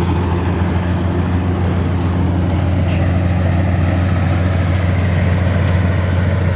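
Motorised rice thresher running with a steady low drone, its engine hum unbroken under a rushing mechanical noise.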